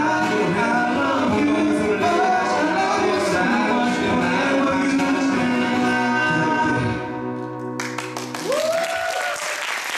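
Male voices singing in harmony over two strummed acoustic guitars, ending on a held final chord that rings out about seven seconds in. Applause breaks out about eight seconds in, with a whoop from the audience.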